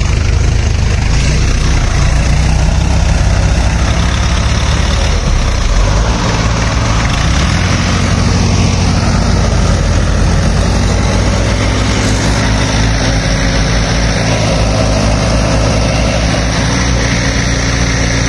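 Tractor diesel engines running hard under load: a second tractor is towing a Sonalika 750 DLX stuck deep in mud by a rope, and both are straining to break it free. The engine note shifts about six seconds in.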